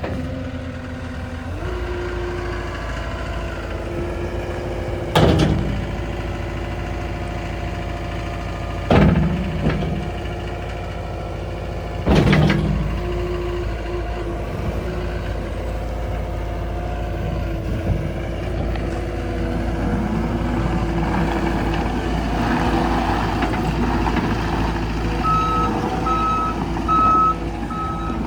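John Deere 331G compact track loader's 88.5 hp Tier 4 diesel running under work, its pitch shifting as it is throttled, with three loud bangs about 5, 9 and 12 seconds in. Near the end its backup alarm starts beeping at an even rate as it reverses.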